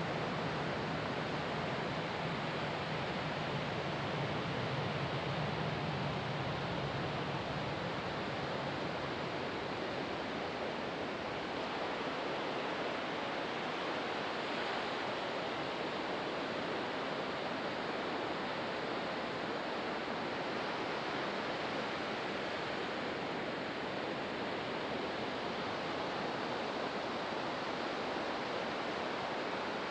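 Ocean surf washing steadily onto a sandy beach, an even rushing hiss without distinct breaks. A low hum lies under it for about the first nine seconds, then fades out.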